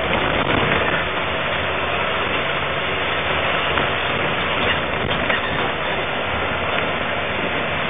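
Bus engine idling, heard from inside the passenger cabin through a security camera's microphone as a steady, even noise.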